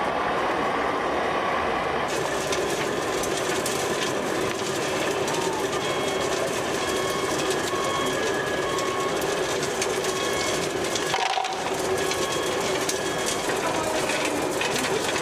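Radio-controlled scale model trucks and construction machines running: the steady whir of small electric drive motors and gearboxes mixed with the engine sounds of a model truck's sound module. A faint beep repeats several times in the middle.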